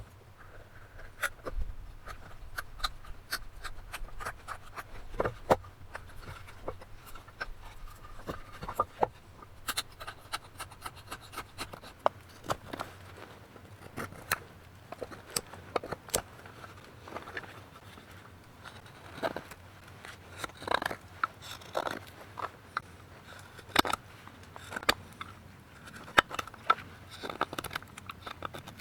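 Knife carving wood: a run of short, irregular scraping cuts and clicks.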